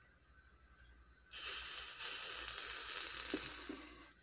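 Flux sizzling and spattering under a hot soldering iron pressed onto copper desoldering braid on a solder joint. The hiss starts suddenly about a second in, holds loudly, then fades near the end.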